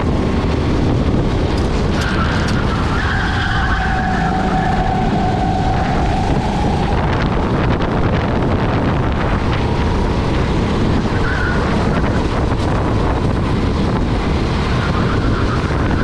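Rental go-kart's engine running at racing speed, heard onboard under heavy wind rush on the microphone. Higher steady tones come in about two seconds in and hold for several seconds, then briefly return later.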